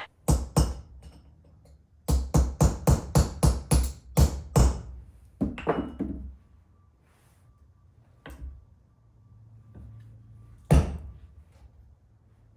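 Hammer striking a punch to drive a small roll pin out of a differential carrier: two blows, then a quick run of about ten at roughly four a second, a few more scattered blows, and one last loud blow near the end.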